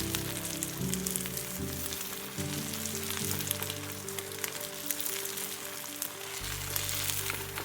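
Food sizzling and spitting in a hot pan, with background music playing steady chords underneath.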